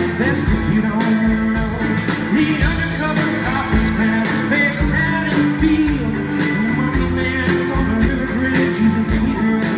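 Live rock band playing: electric and acoustic guitars, electric bass, keyboards and a steady drum beat, with a male voice singing over it, heard from the audience in a large hall.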